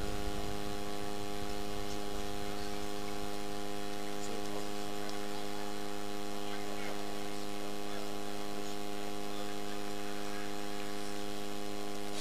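Steady electrical mains hum, a buzzing tone with many overtones that stays unchanged throughout.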